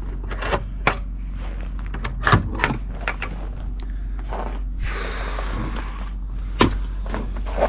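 Footsteps crunching in snow, then a scrape and a sharp knock as the door of a homemade wooden smoker is opened.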